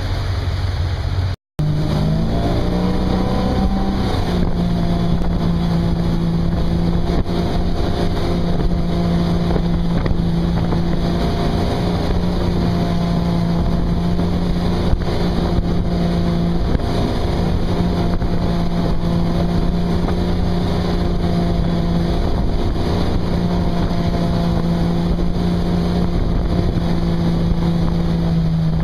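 Motorboat engine running at a steady high speed while towing a water-skier, over a constant rush of water and wind. The sound drops out for a moment about a second and a half in, then the engine note climbs a little and holds steady.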